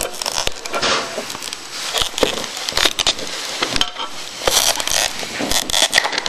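Plastic packaging being handled: a run of crackling, rustling and sharp clicks as the iPod Touch is taken out of its plastic tray and wrapping.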